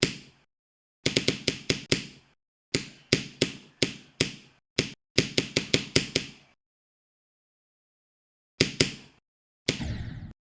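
Sharp clicking taps in quick runs of about five to seven, roughly four or five a second, with dead silence between the runs; the last run near the end is a short rattle.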